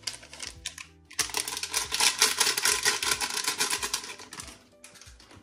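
Gulaman (agar) powder poured from a sachet into an empty stainless steel pot: a dense, rapid patter of grains hitting the metal, starting about a second in and dying away near the end. A shorter, sparser spell of the same comes in the first second.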